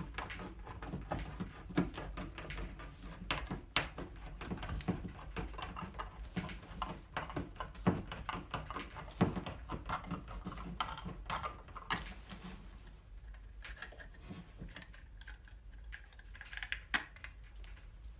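Irregular metal clicks and scraping as a tin can of beans is opened and handled. The clicking is busiest for the first twelve seconds or so, then thins out.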